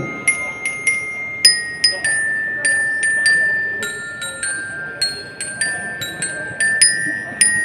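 Marching bell lyres (glockenspiel bars on an upright lyre frame) struck with mallets, playing a slow melody of single ringing notes about every half second, each note sustaining into the next.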